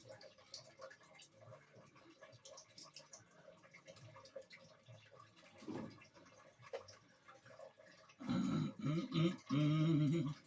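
Faint scattered clicks and taps of handling for most of the stretch, then a man's voice in two short bursts of wordless vocal sounds about eight seconds in, lasting about two seconds.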